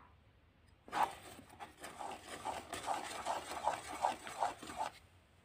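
Wooden spatula stirring thick melted jaggery syrup in a kadhai: a sticky scraping in even strokes, about three a second, starting about a second in.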